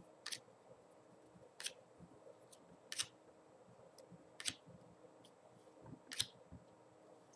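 Glossy football trading cards being flipped through by hand, each card slid off the stack with a short, crisp snap, five times at roughly one-and-a-half-second intervals.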